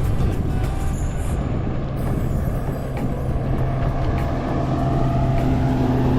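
Boat motor running steadily under way, a constant low hum with wind and water noise over it.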